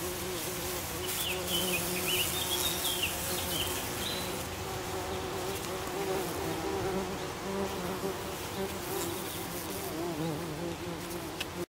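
Many buff-tailed bumblebees buzzing together at their nest: a steady hum of overlapping wingbeat tones that waver in pitch.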